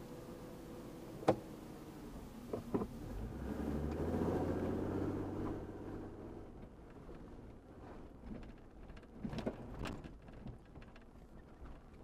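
Off-road vehicle engine heard from inside the cab while climbing a rocky trail: the engine note swells and rises about three to five seconds in, then eases off. Sharp knocks and rattles come as the vehicle jolts over rocks, one loud one about a second in, two more shortly after, and a cluster around nine to ten seconds.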